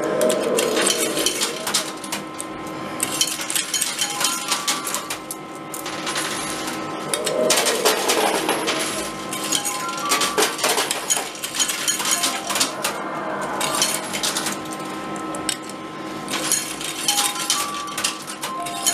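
Metal coins clinking and clattering in a coin pusher machine as coins are played into it and tumble onto the playfield, a dense run of irregular clicks throughout.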